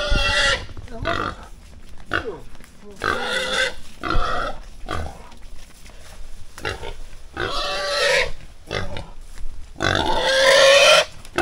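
A pregnant sow squealing repeatedly while men hold and carry it: a string of loud squeals under a second each with short gaps, the longest and loudest near the end.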